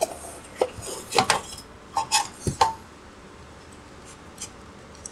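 A run of sharp metal clinks and knocks, about seven in the first three seconds, some with a short ring, as a fan assembly and hash board are pushed into a Goldshell Mini Doge box miner's metal case; after that only a few faint ticks.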